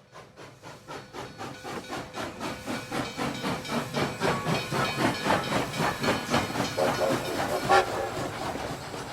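Steam locomotive chuffing in an even rhythm of about four to five chuffs a second, growing steadily louder.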